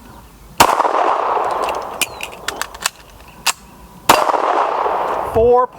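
A handgun fired twice, about three and a half seconds apart, each shot ringing out with range echo. Between the shots come a string of metallic clicks and knocks from a speed reload: the magazine is changed and the slide is run.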